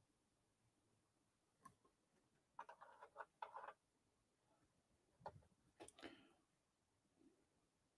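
Near silence broken by a few faint clicks and light handling noises as a plastic Humvee scale model is picked up and turned over on a paper instruction sheet. There are two short clusters, about two and a half seconds in and again about five seconds in.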